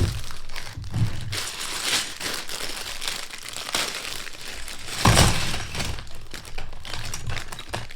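Crinkling of a plastic Lego parts bag being opened and handled, with a louder rustle about five seconds in.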